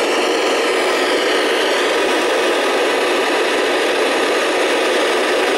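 Steady, loud FM static hiss from an amateur radio transceiver tuned to the ISS downlink on 145.800 MHz FM, with no signal on the channel: the noise an open FM receiver gives between transmissions.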